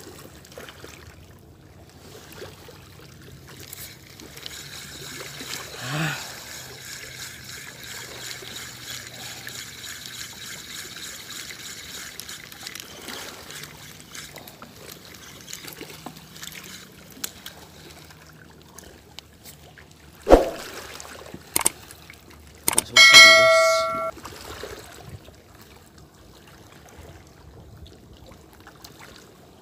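Small waves washing and trickling over a rocky shoreline, with a faint whirring for several seconds in the first half. About two-thirds of the way through comes a sharp knock, then a brief metallic clang that rings for about a second and is the loudest sound.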